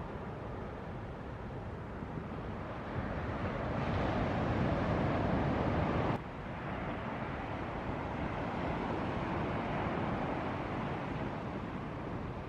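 Ocean surf breaking, with a steady rush of wind. The rush grows louder about four seconds in, then drops suddenly about two seconds later.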